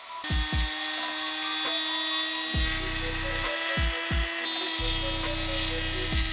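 Electronic music with a kick-drum beat and a held synth tone, with short melody notes stepping above it.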